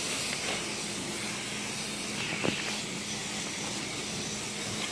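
Pressure washer spraying water onto a car's wheel and tyre: a steady hiss with a faint steady low hum under it. A short knock comes about halfway through.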